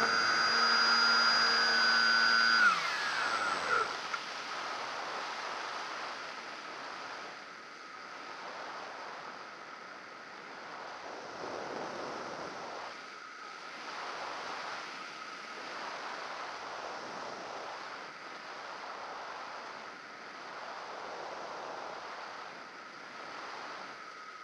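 Radio-controlled model airplane's motor whining at a steady high pitch, then throttled back about three seconds in, its pitch sliding down as it winds down. After that, steady wind rush from the airflow over the plane, swelling and fading slightly.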